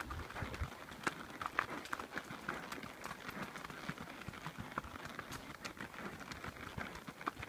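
Missouri Fox Trotter's hooves striking a gravel track: a continuous run of light, uneven hoof clicks as the horse goes uphill.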